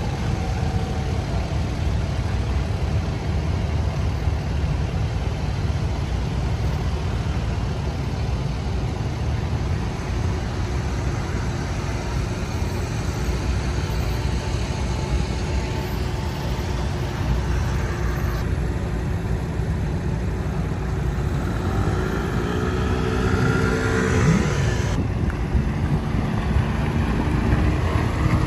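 Pickup trucks towing boat trailers at low speed, a steady engine and tyre rumble. About 22 seconds in, a vehicle engine rises and then falls in pitch.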